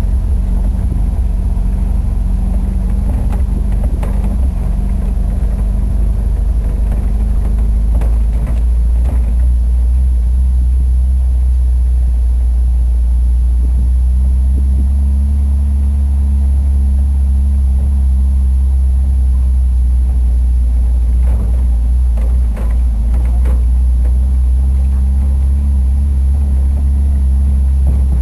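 An old bus's engine running steadily under load off-road, a heavy low rumble whose pitch rises and falls slowly. A few short knocks and rattles come through, mostly around a few seconds in and again in the last third.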